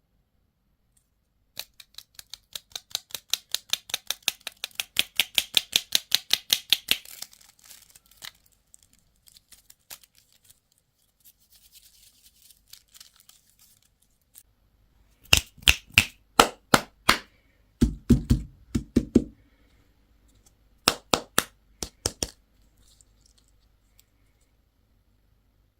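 A fast, even run of sharp clicks, about seven a second, for roughly six seconds. Later come three short clusters of louder clicks and taps, the middle one with a few dull knocks.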